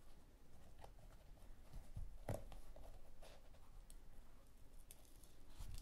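Faint handling noise: soft rustles and a few light ticks as a small Velcro-strapped fabric sensor case is worked onto a sneaker's laces by hand, the clearest tick a little over two seconds in.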